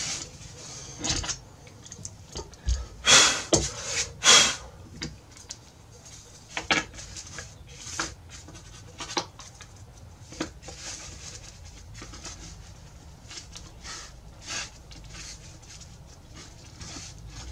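Irregular short scraping and rubbing noises of hand work on a padauk guitar rosette being fitted into its channel in the top. A few louder strokes come about three to four and a half seconds in, then smaller ones.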